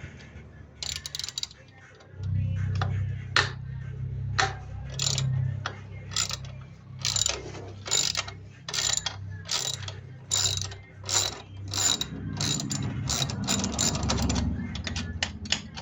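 Hand ratchet wrench clicking in quick repeated swings, about two a second, over a low steady hum.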